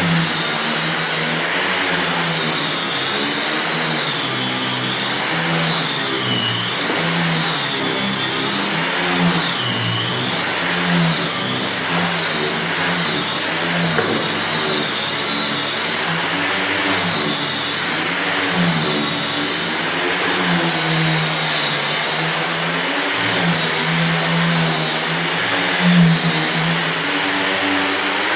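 Electric angle grinder fitted with a sanding disc, running steadily while sanding wooden doors. Its high whine dips and recovers in pitch over and over.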